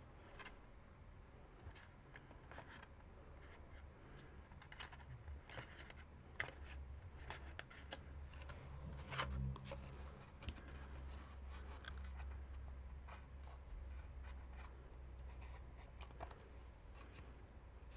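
Faint handling sounds of thin card being folded and pressed between fingers: scattered soft clicks and rustles over a low hum.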